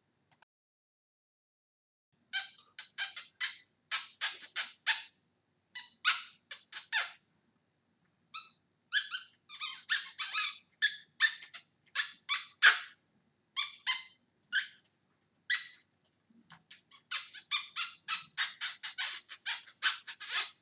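Hamster squeaking: runs of short, high squeaks in quick succession, broken by brief pauses. It starts after about two seconds of quiet and ends in a dense run of squeaks.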